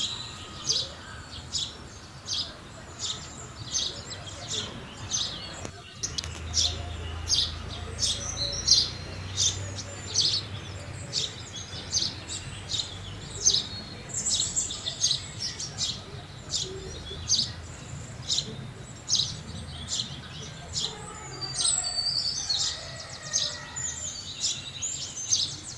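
House sparrows chirping, short high chirps about two or three times a second without a break.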